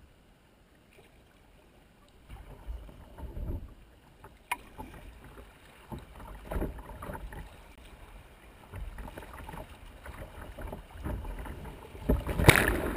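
River water rushing and splashing against a kayak's bow as it runs a riffle, close to a bow-mounted camera. The splashing comes in uneven surges, starts faint, builds after a couple of seconds, and peaks in a loud splash near the end as water washes over the camera.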